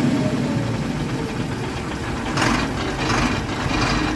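A heavy diesel truck engine running at idle, with a low uneven rumble and a noisier burst a little past halfway.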